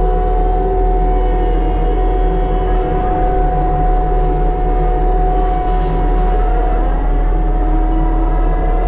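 Mini excavator's engine and hydraulics running a Rut hydraulic brush cutter head, a steady low rumble with a held whine on top, its pitch shifting a little as the cutter works.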